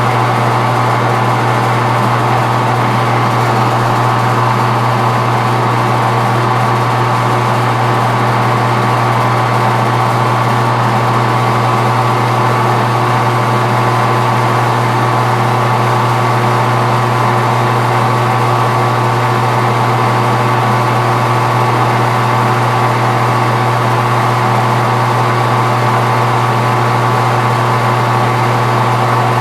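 Metal lathe running steadily under power, a strong low motor hum with a steady higher whine from the drive, while it takes light facing cuts on bar stock.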